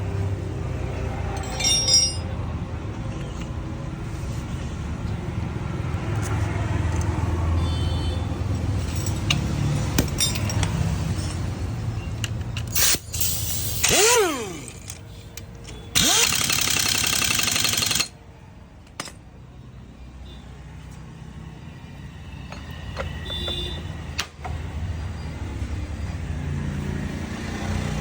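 Bajaj Pulsar motorcycle engine running steadily at idle. About halfway there are two loud, noisy bursts with falling sweeps, then a quieter stretch of several seconds before the low running sound builds again near the end.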